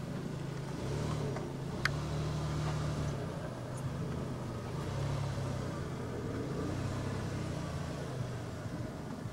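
Toyota Tacoma pickup's engine pulling at low speed as the truck crawls over slickrock, the throttle swelling and easing every second or so. One sharp click about two seconds in.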